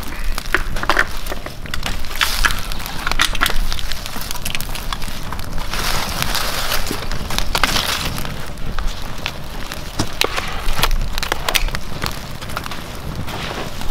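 Campfire being fed by hand: dry sticks and split wood handled and laid on the fire, giving rustling, crunching swells and many sharp snaps and clicks over the crackle of the flames.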